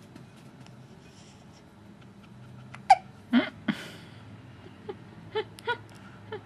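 A sleepy baby making short, sudden little vocal sounds, hiccup-like squeaks and grunts. They begin about three seconds in and come as a quick cluster of three, then four more, each a fraction of a second long.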